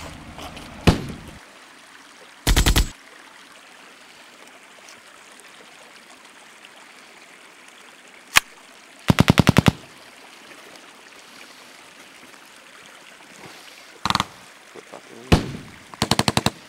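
Automatic gunfire in three short bursts of rapid shots, several seconds apart, with a few single shots between them, over a steady faint background hiss.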